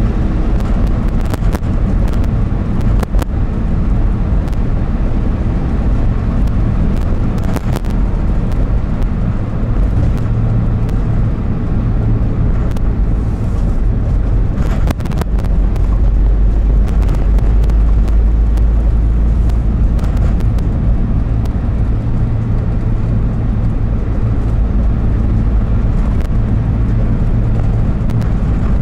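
Car engine and road noise inside the cabin while driving steadily, a continuous low drone, with a few brief knocks.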